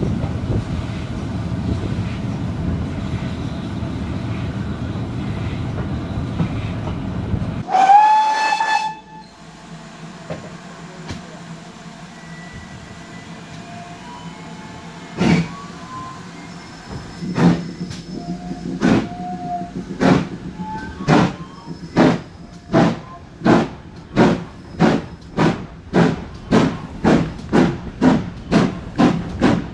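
Wind buffeting the microphone over the rumble of a moving train, then a short, loud steam whistle about eight seconds in. After a cut, the exhaust beats of GWR Castle class 4-6-0 No. 4079 Pendennis Castle getting a train under way: slow, sharp chuffs from about fifteen seconds in that quicken steadily to about two a second.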